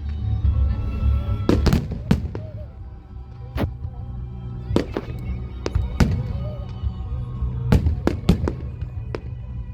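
Fireworks display: about a dozen sharp bangs of exploding shells at irregular intervals, several in quick clusters, over a steady low rumble.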